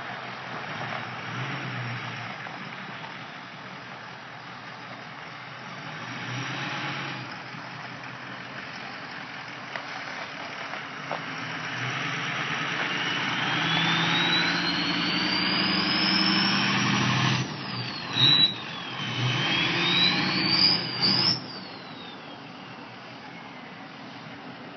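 2003 Ford F-250 turbocharged engine running, its turbo whistle rising in pitch as the engine comes up on boost, dipping, climbing again, then falling away as the revs drop.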